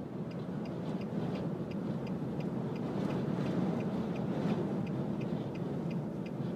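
Inside a moving car in a dust storm: a steady rush of wind and road rumble, with the hazard flasher relay ticking evenly about three times a second.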